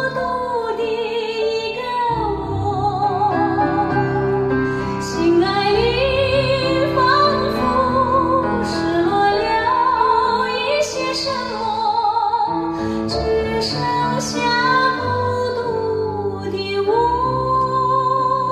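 A Chinese ballad played back on a hi-fi system: a female voice sings long notes with wide vibrato over piano and sustained bass. It is played as a listening test of the room after acoustic panels have been fitted.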